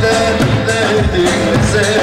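Lively dance music with a steady drum beat under a melody line.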